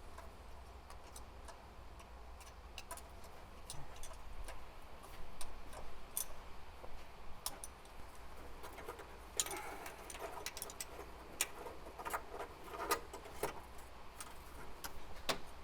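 Scattered light clicks and taps of hand tools working on a car engine, coming thicker from about halfway through.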